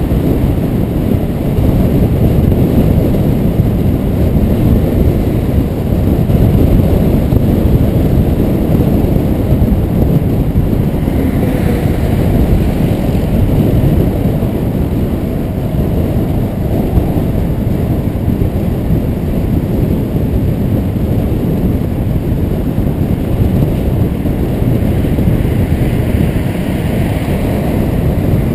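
Wind buffeting a GoPro's microphone on a road bike ridden at speed: a loud, steady low rumble.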